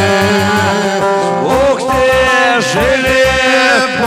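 Bosnian folk music played live on a Korg Pa800 arranger keyboard and a saz: an instrumental passage between sung verses, with a bending, gliding lead melody over a steady bass beat.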